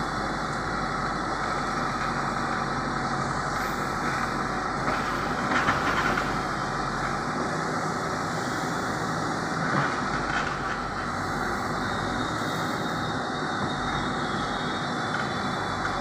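Terex TLB 740S backhoe loader's diesel engine running steadily under load as the backhoe arm digs and swings, with a couple of brief knocks about six and ten seconds in.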